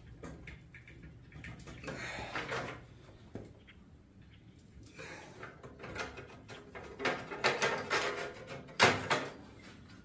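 Steel crossbar clamped to a welding table being twisted with a big crescent wrench: creaks, scrapes and clanks of steel under strain. They come in a burst about two seconds in and a longer run near the end, where one sharp clank is the loudest.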